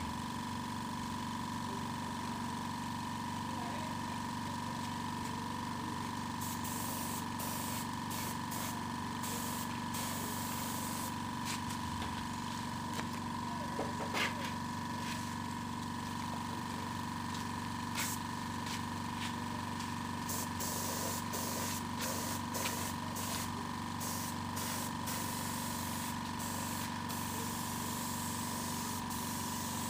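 Air compressor running with a steady hum, while a spray gun hisses in many short bursts from about six seconds in, spraying clear coat onto a bicycle frame.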